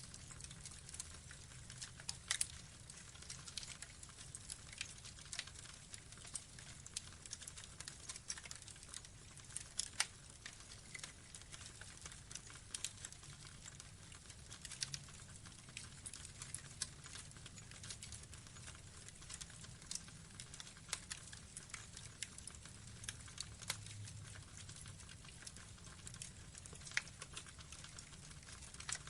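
Burning logs crackling: irregular sharp pops and snaps scattered throughout, the loudest about two and ten seconds in, over a faint low rumble.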